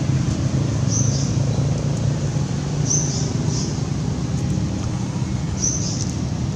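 Short high-pitched animal chirps, singly or in pairs every second or two, over a steady low rumble.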